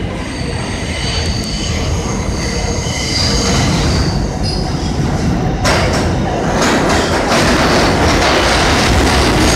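R142A subway train approaching along the track, its wheels squealing on the rails in several steady high tones over a rumble that grows louder. The rumble jumps up about halfway through as the train nears.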